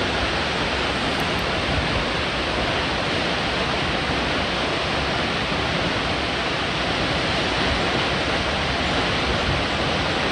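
Latourell Falls, a tall plunge waterfall, with water rushing in a steady, even noise that does not change.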